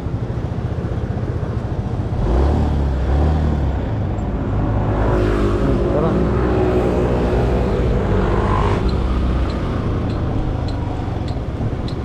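Motorcycle engine running, first at a low idle and then louder from about two seconds in as the bike pulls away and rides along the street, with road and wind noise.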